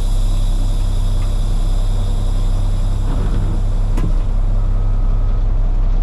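Freightliner truck's diesel engine idling steadily, heard from inside the cab, with one sharp knock about four seconds in.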